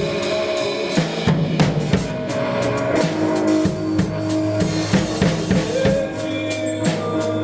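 Instrumental blues jam-band music: a drum kit with bass drum and snare keeps a steady beat under a bass line and held notes from other instruments.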